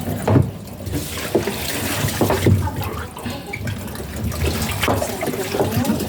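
Water running and splashing, with a few sharp knocks scattered through it.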